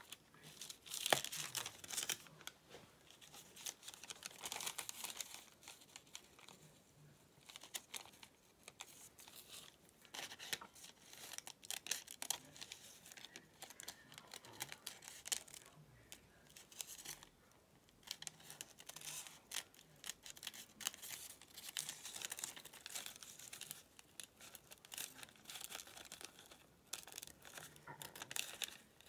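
Thin paper rustling and crinkling in irregular bursts as a sheet of translucent pattern paper is handled and cut with small snips, with the loudest crackle about a second in.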